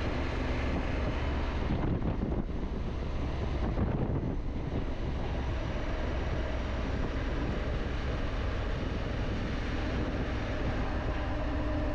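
Wind buffeting the microphone over the steady drone of a Honda Africa Twin motorcycle's engine and road noise while riding.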